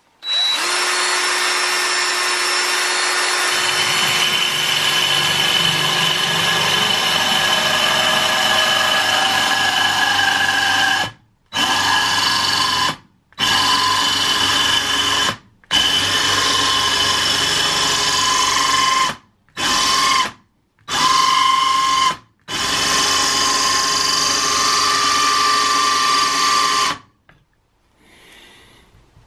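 Drill spinning a 1/2 in. Milwaukee Diamond Plus diamond hole saw into wet granite countertop: a steady motor whine with grinding. It runs unbroken for about eleven seconds, then starts and stops in a string of shorter runs of one to four seconds each, and cuts off a couple of seconds before the end.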